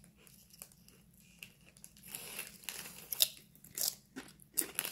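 Hot and spicy chili lemon Waves chips being bitten and chewed, with a few sharp crunches starting about two seconds in.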